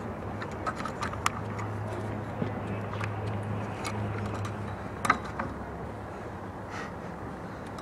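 Steady low hum with a few sharp knocks of a tennis ball on a hard court, the loudest about five seconds in.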